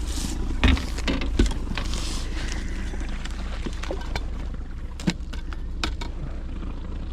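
A boat motor runs steadily at trolling speed, with a few sharp knocks and clicks from gear being handled in the boat.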